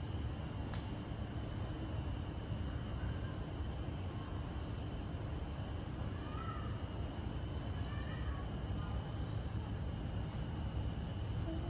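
Steady low room noise, such as air-conditioning, with faint distant voices and a few light high ticks.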